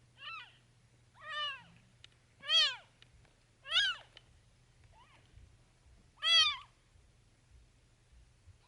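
A cat meowing six times in a row, short calls about a second apart, each rising and then falling in pitch; the fifth is faint.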